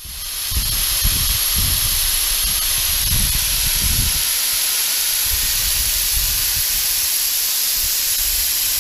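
Steady loud hiss of gas venting from a liquid-oxygen-fuelled rocket on the pad, with a thin high whistle over it. Irregular low rumbles of wind buffet the microphone underneath.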